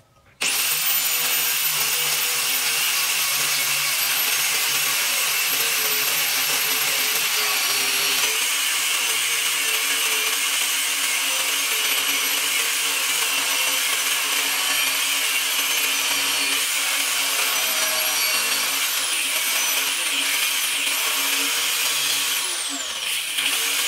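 Electric angle grinder with an abrasive cut-off disc cutting through steel plate: a loud, steady high whine over a grinding hiss. It starts abruptly about half a second in, the whine dips in pitch a few times near the end, and it stops abruptly.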